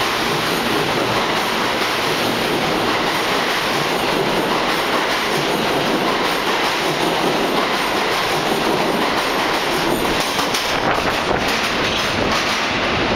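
R160A subway train accelerating out of an underground station, its cars running past on the rails as a steady, loud wash of wheel and rail noise. About ten seconds in, sharper clicks and clacks of wheels over the rail joints come through as the last car goes by and the train pulls away into the tunnel.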